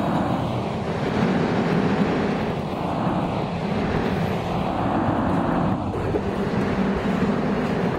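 Subway train running through a tunnel: a steady, loud rumble of steel wheels on rail.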